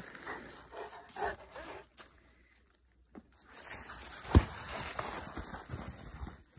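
Large dogs playing with a ball: breathing and scuffling, a quiet gap in the middle, then one sharp thump a little over four seconds in.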